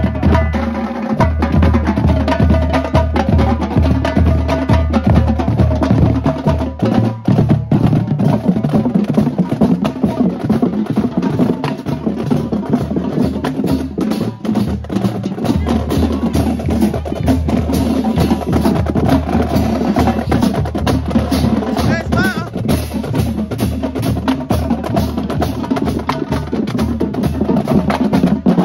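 Marching band drumline playing: snare drums with a fast, dense stream of stick strikes over a steady pulse of pitched bass drums. The bass drum pulse drops out briefly twice, about a quarter and halfway through.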